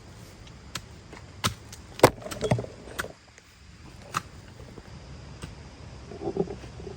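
Irregular sharp knocks and clatters, the loudest about two seconds in and followed by a short cluster, with a brief low pitched sound near the end.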